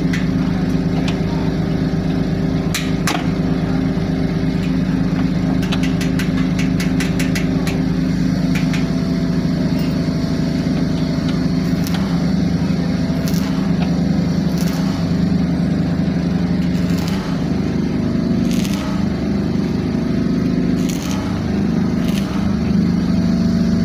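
A small engine or motor running steadily with a low drone, with runs of rapid ticking and a few sharp taps over it.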